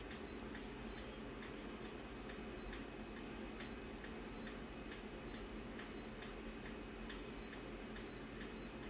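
Photocopier touchscreen control panel giving a short, high beep for each tap of a setting button, about a dozen beeps at irregular intervals, each with a faint click, over a low steady hum.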